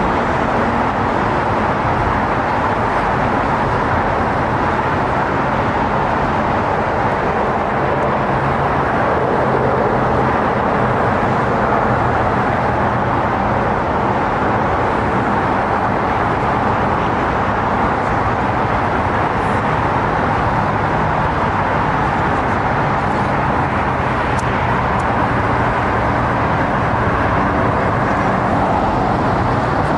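Steady city traffic noise, a continuous even rumble and hiss with no distinct events, picked up by a camera's built-in microphone.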